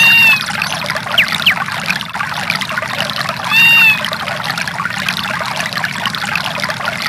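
Samsung SGH-E810 ringtone of running, trickling water. Two short arched calls sound over it, one at the start and one about three and a half seconds in, and two quick whistle-like slides come just after one second.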